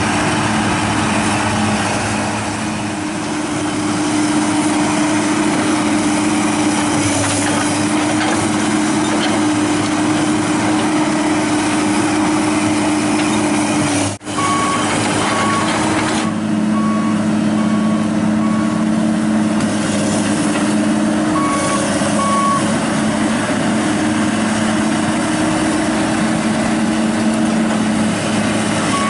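Diesel engine of a Komatsu crawler excavator running steadily under load. About halfway in, after a brief dropout, a repeating travel-alarm beep joins it in several runs, the warning the machine gives while it moves on its tracks.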